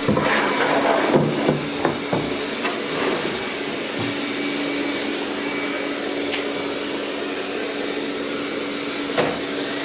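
Roborock S6 MaxV robot vacuum running, its suction fan a steady whir with a steady hum, while a plywood plate is set down with a few wooden knocks in the first two seconds. A single knock comes near the end.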